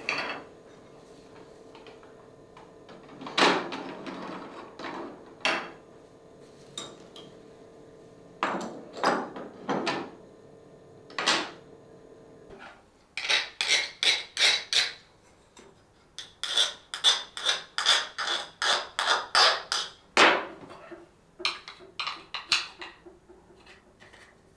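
Sharp clicks and knocks of hard plastic toy parts being handled and fitted together by hand. Scattered at first, then comes in two runs of quick, even clicks, about three a second, through the middle and near the end.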